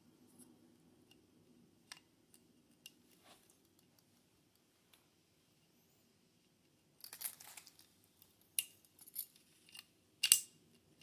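Small metal parts clicking as blue lower parts are worked by hand into an AR-15 lower receiver: a few faint single clicks in the first seconds, a quick run of clicks and rattle about seven seconds in, and a sharper, louder click near the end.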